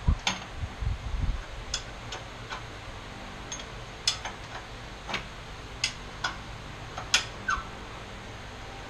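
Irregular sharp clicks and taps, about a dozen spread over several seconds, with a few low thumps in the first second and a half: band saw parts and tools being handled and set down during disassembly.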